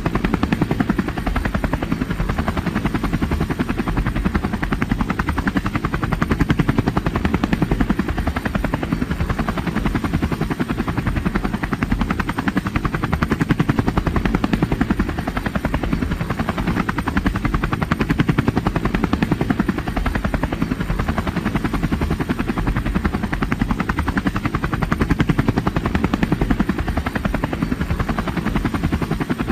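Helicopter rotor chopping at a fast, even rate, steady in level throughout.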